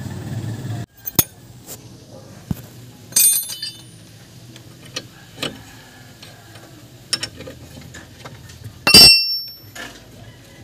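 Scattered metallic clinks and taps of wrenches and steel brake parts being handled, the loudest a ringing clink about nine seconds in. A low hum at the start cuts off abruptly about a second in.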